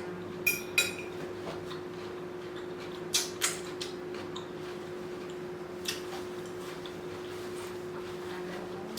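Close-miked eating sounds: a few short crunches and mouth clicks from chewing salad, over a steady low hum.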